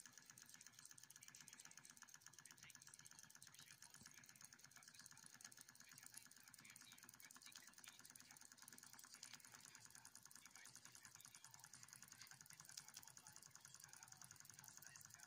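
A Wilesco D2 miniature oscillating-cylinder steam engine running at speed: a faint, fast, even ticking from its rocking cylinder and spinning flywheel.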